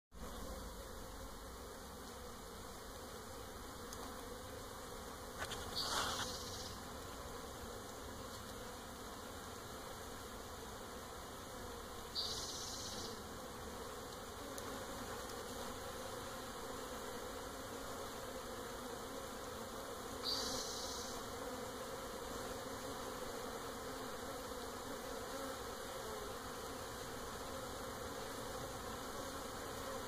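A swarm of honeybees buzzing, a steady hum. Three short, louder noises break in about 6, 12 and 20 seconds in.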